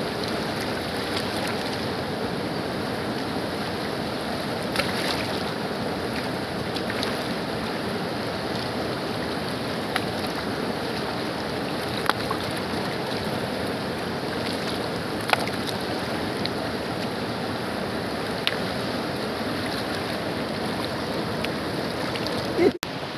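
Fast, shallow mountain river rushing over rocks, a steady loud noise, with a few brief sharp ticks now and then and one louder knock near the end.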